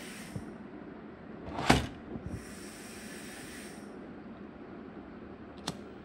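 Handling noises: a sharp knock about two seconds in, short stretches of hiss, then a click near the end as a disposable lighter is struck to light its flame.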